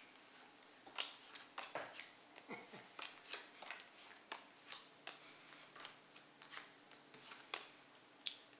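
Playing cards being dealt one at a time onto a stone tabletop: a run of light, unevenly spaced snaps, about two a second.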